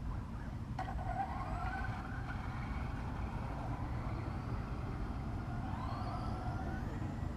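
Radio-control car's motor whining up in pitch as the car accelerates, twice: about a second in and again near the end, over a steady low rumble.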